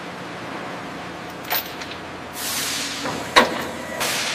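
Heavy-equipment workshop sounds over a steady low hum: a short click, two bursts of hissing air that fade away, and one sharp metal clank about three and a half seconds in, the loudest sound.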